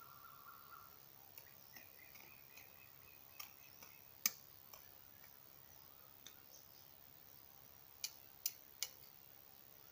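Quiet surroundings broken by scattered sharp clicks or taps: one loudest about four seconds in, and three in quick succession near the end. A faint thin chirping sound comes in the first few seconds.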